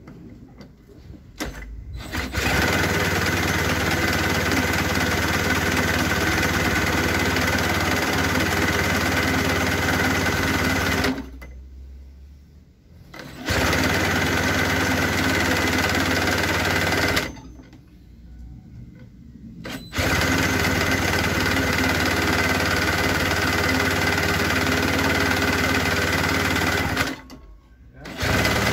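Cordless drill cranking a Stihl BR 400 leaf blower's two-stroke engine through its starter: a loud steady whir held for several seconds at a time, with three short pauses. The engine does not yet run on its own.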